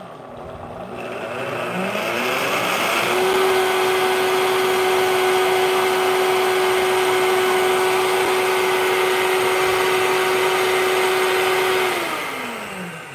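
Vitamix countertop blender motor spinning up as the speed dial is turned, a rising whine that settles into a steady high-speed run for about eight seconds before winding down near the end. It is blending a thick mixture of scrambled eggs, cream and beef broth into a sauce.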